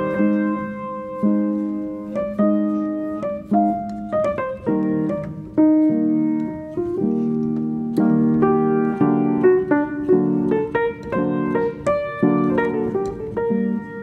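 Background piano music: a slow, unhurried run of notes and chords, each struck and then fading away.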